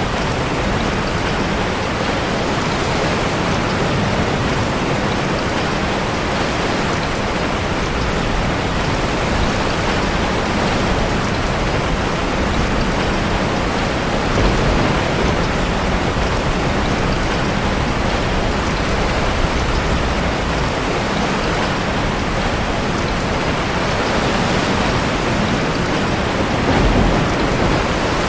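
Heavy rain and ocean waves surging in a sea cave, a steady rushing hiss with a couple of deeper swells, about halfway through and near the end.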